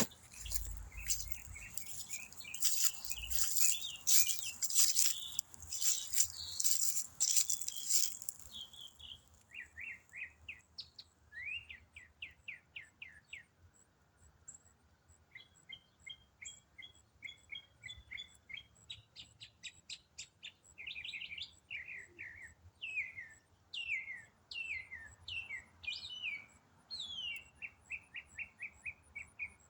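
A songbird singing a long, complex song: runs of rapid repeated notes and quick rising and falling whistled sweeps, each phrase repeated several times before it changes, in the manner of a mockingbird. Over the first eight seconds a loud crackling noise lies over the song.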